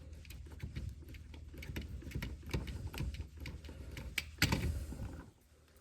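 Handling noise of a wall receptacle being twisted and wiggled against a wire held under tension: a run of small clicks and rattles with a louder scrape about four and a half seconds in, as the back-stabbed wire is worked out of its push-in terminal.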